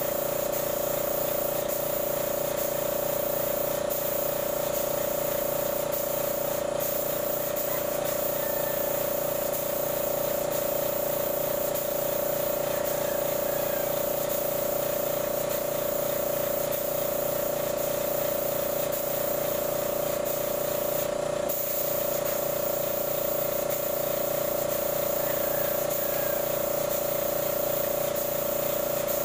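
Electric air compressor running steadily with a steady hum, while a compressed-air spray gun hisses varnish onto a wooden cabinet.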